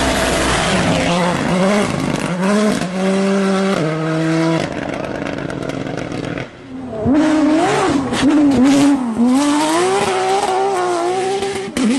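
Rally car engines at full throttle on gravel stages: in the first half one engine climbs and drops in pitch in steps as it changes gear, and after a cut about six and a half seconds in another engine rises and falls as it is driven through corners.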